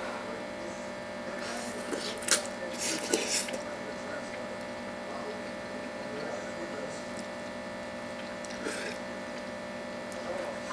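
A man eating spicy instant noodles: a few short slurps and sharp breaths through pursed lips in the first few seconds and one more near the end, over a steady electrical hum.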